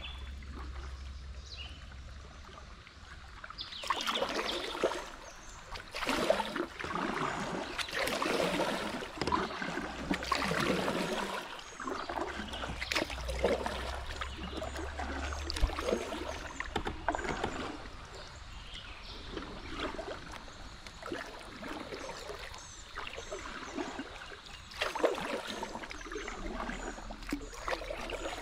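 Kayak paddle strokes: the blades dip and splash in the river in uneven bursts, with water trickling off the paddle between strokes.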